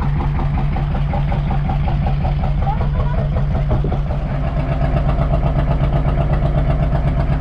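Fishing boat's inboard engine running steadily, heard from on board, with an even low beat; it grows a little louder about four and a half seconds in.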